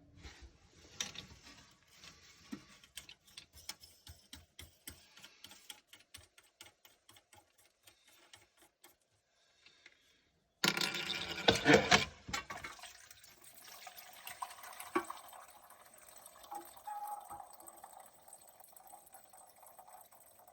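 Water running in a toilet tank. Scattered small ticks for the first ten seconds, then about ten seconds in a loud rush of water starts abruptly and settles into a steady running hiss.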